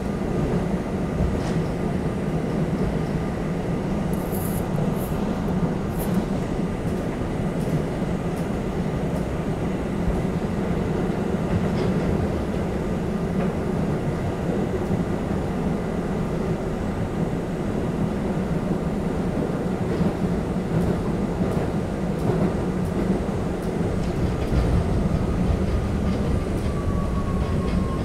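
R32 subway car running along the track, heard from inside the car: a steady rumble of wheels on rail with scattered clicks, and a thin whine that slowly falls in pitch near the end.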